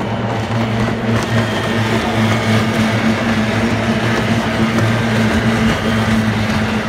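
Two-stroke outboard engines of kyotei racing hydroplanes running flat out as the boats pass. They make a steady high-revving buzz that grows louder from about a second in.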